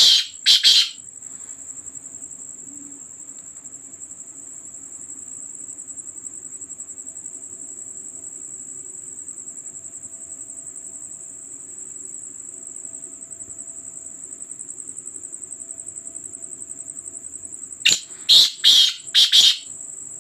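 Black francolin calling: a call of several loud quick notes, the last notes of one call right at the start and a full call of about five notes about 18 seconds in. A steady high trill of crickets runs underneath throughout.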